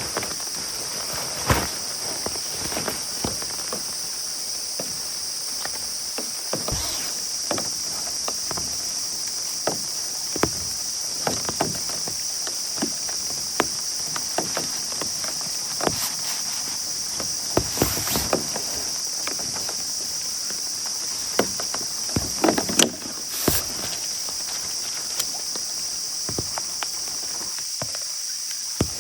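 Scattered knocks and clicks, some louder than others, over a steady high-pitched hiss.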